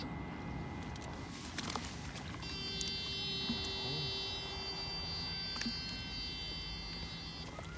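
Electrofishing shocker's power unit whining in a set of high steady tones, which stops briefly and switches back on about two and a half seconds in, then cuts off near the end, as current is sent through the bamboo-pole electrodes to stun fish in the water.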